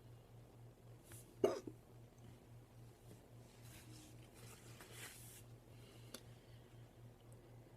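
A single hard hiccup from a person about a second and a half in, over a faint low hum.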